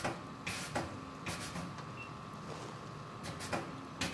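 Lab room tone: a steady faint hum with a thin high whine, broken by a handful of soft clicks and knocks.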